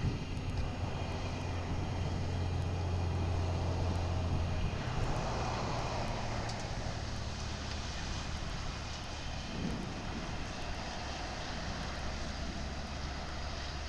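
A vehicle running with a steady low drone and a broad rushing noise over it; the low hum drops and changes about five seconds in.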